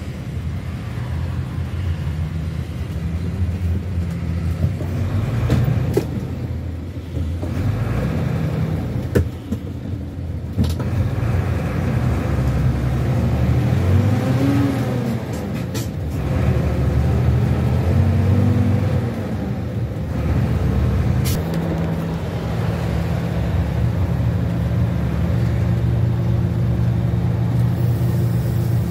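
Bus engine droning with road noise, heard from on board in traffic. The engine note rises and falls twice in the middle as it pulls away through the gears. A few sharp clicks or rattles sound along the way.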